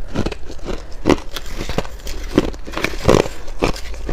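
Shaved ice being chewed close to the microphone: a run of crisp, uneven crunches, about two or three a second.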